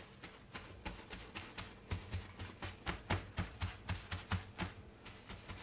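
Paper towel patting whole snapper dry on a plastic cutting board: an uneven run of soft pats and taps, several a second, heaviest in the middle.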